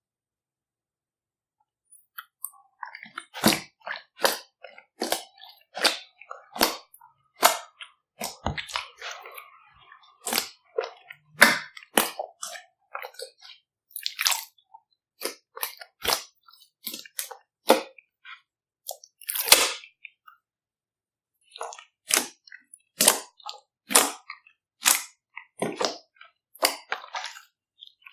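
Glittery slime being pressed and folded by hand, giving a series of sharp clicks and pops from trapped air, roughly one or two a second, starting about two seconds in.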